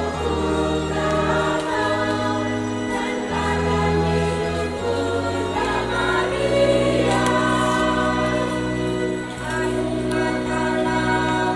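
Mixed church choir singing in parts, with keyboard organ accompaniment holding steady low chords that change every second or two.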